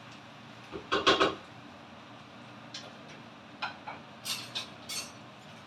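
Kitchen dishes and cutlery knocking and clinking: a short clatter about a second in, then a few light clicks.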